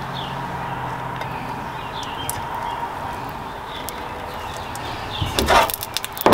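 Steady outdoor background noise with faint short bird chirps about once a second, and a few sharp clatters near the end.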